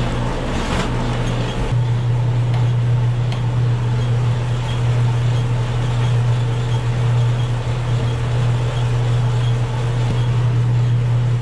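A steady low machine hum that gets louder about two seconds in, with a few light handling knocks near the start.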